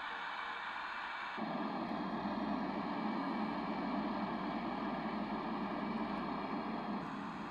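Yogasleep Whish white noise machine playing a steady hiss. About a second and a half in it switches abruptly to a slightly louder, deeper noise setting with a faint steady high tone, then switches back near the end.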